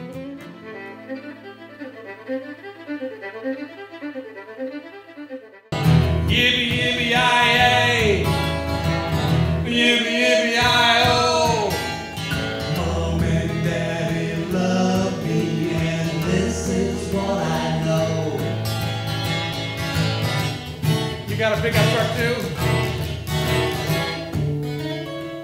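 Quiet fiddle music, then about six seconds in an abrupt cut to a louder live performance: a man singing with an acoustic guitar.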